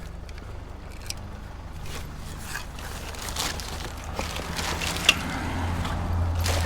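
Scrapes and clicks of discarded electronics and cords being handled, with one sharper click about five seconds in. Under it runs the low hum of a vehicle engine, which grows louder near the end.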